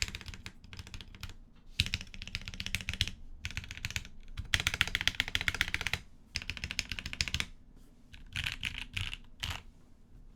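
Mechanical keyboard typing in fast bursts with short pauses between them. The board is a gasket-mount Maker Alexa with a POM plate, lubed Gateron Milky Yellow Pro KS-3 linear switches and Drop DCX keycaps.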